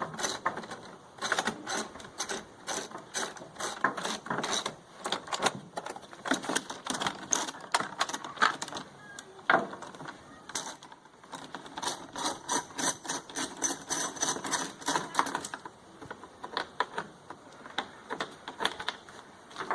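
Hand tools clicking and rattling in quick runs of clicks, with short pauses, as bolts are backed out of the generator's plastic cover panels.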